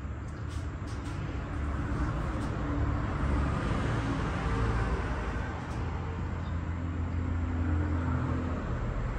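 Steady low background rumble, like road traffic or machinery, with a faint hum that shifts in pitch now and then.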